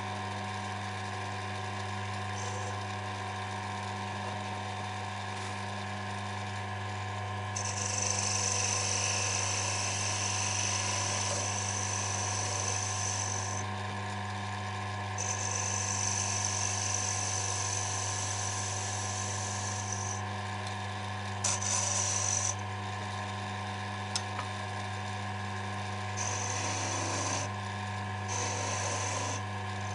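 Small wood lathe running with a steady hum while a hand tool scrapes the small spinning wooden spike, the high-pitched cutting noise coming in several passes of a few seconds each, from about eight seconds in and again near the end.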